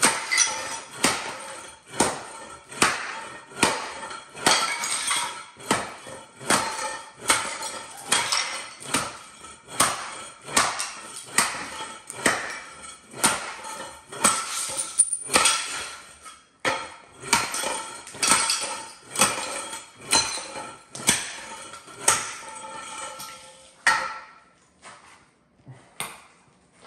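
Hammer blows struck steadily about once a second, each with a short metallic ring, stopping a few seconds before the end and followed by a few lighter taps.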